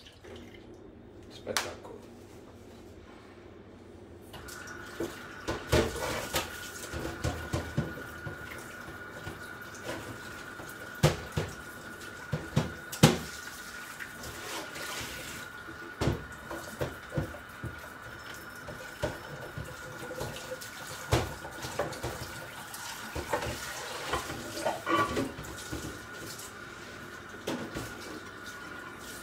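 Kitchen tap running into a sink, switched on about four seconds in, with repeated knocks and clatters of cookware being rinsed under it.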